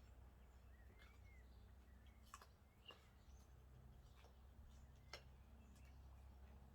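Near silence: a steady low hum with a few faint sharp clicks and a faint short chirp.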